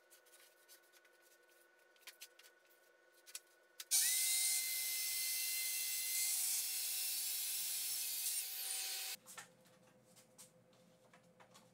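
Festool TS55 FEQ track saw running along its guide rail, ripping a narrow strip off a plywood panel: it starts about four seconds in with a quick rising whine, runs steadily for about five seconds and stops abruptly. Light knocks of wood being handled come before and after the cut.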